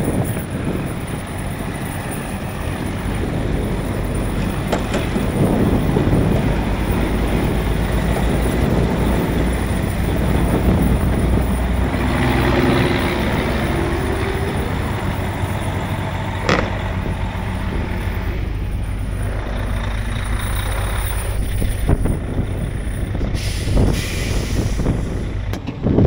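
Heavy-duty tow truck's diesel engine running steadily, with hisses of air from the truck's air brakes partway through and again near the end.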